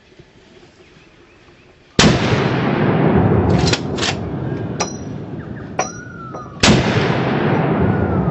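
Two gunshots from a hunter's gun about four and a half seconds apart, each with a long echo rolling away through the woods for several seconds. A bird chirps a few times between the shots.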